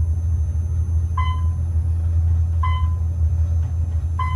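Modernized Otis traction elevator car travelling upward, giving a steady low rumble of the ride. A short electronic ding sounds as each floor is passed: three dings about a second and a half apart.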